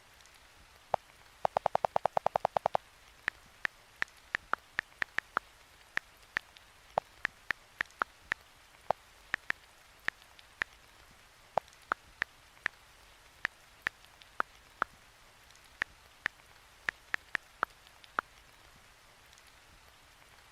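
A series of short sharp ticks or drips, each with a brief high ping. A quick run of about a dozen comes near the start, then single ones follow at uneven intervals of roughly half a second to a second.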